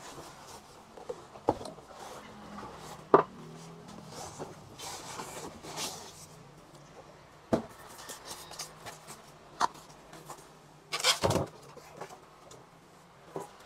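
A cardboard box being handled and opened to take out an electric water pump, with scattered knocks and scraping, the sharpest knock about three seconds in. The plastic bag around the pump crinkles near the end as it is pulled out.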